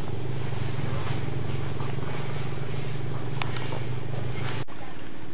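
A steady low mechanical hum with a few faint clicks, which breaks off abruptly near the end and returns weaker.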